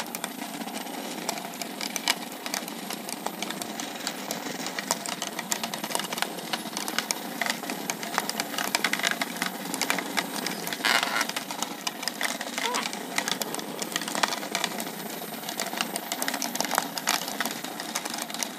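Several Hexbug Nano vibrating robots buzzing as they run, their tiny vibration motors making a steady rattling hum. Many small clicks come from the bugs knocking against each other and the walls of a clear plastic hexagonal arena.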